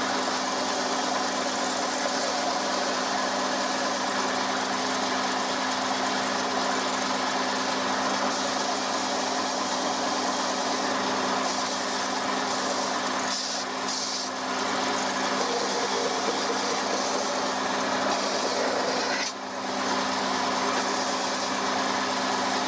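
Stationary belt sander running steadily, its motor humming under the hiss of a wooden box being sanded on the moving belt. The sound dips briefly twice, about the middle and a few seconds before the end.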